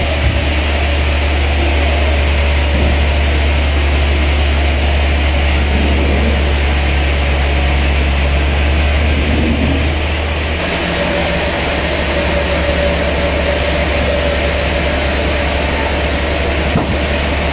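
Sawmill machinery running with a steady low drone, its tone shifting slightly about ten seconds in.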